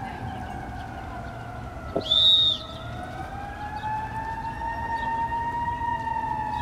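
A siren wailing, its pitch slowly falling and then rising again. About two seconds in, a short high-pitched tone cuts in for half a second and is the loudest sound.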